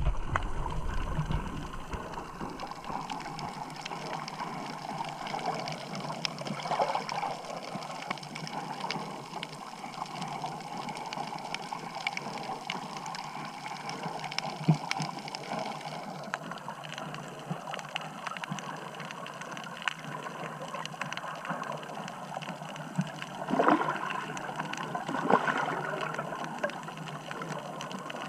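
Underwater ambience heard through a submerged camera: a steady watery hiss with many faint scattered clicks and crackles, and two louder surges about two seconds apart near the end.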